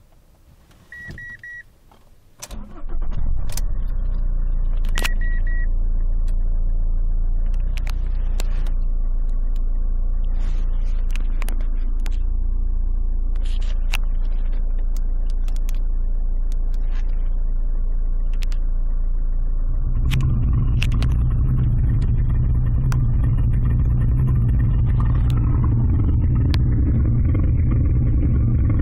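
Sound Racer V8 engine-sound simulator played through the car's speakers, heard inside the cabin. After two short beeps, a simulated V8 start-up comes in suddenly about two and a half seconds in and settles into a steady V8 idle, which gets louder and deeper about twenty seconds in.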